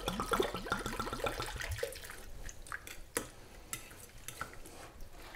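Red wine glugging out of a glass bottle into a glass dish of crushed berries; the fast even glugs fade out about two seconds in. After that, a few sharp clicks and faint wet sounds as the marinade is worked by hand.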